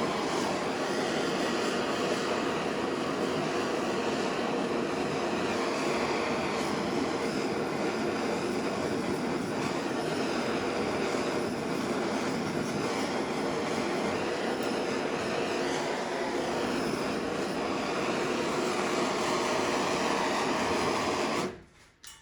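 Blowtorch flame hissing steadily as it heats steel to bring up its colour, then shut off suddenly near the end.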